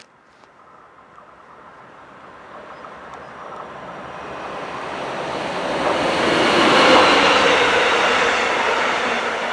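Red electric locomotive and double-deck passenger coaches approaching and passing close by: a rushing noise of wheels on rails that swells steadily, peaks about seven seconds in, then begins to fade as the train goes by.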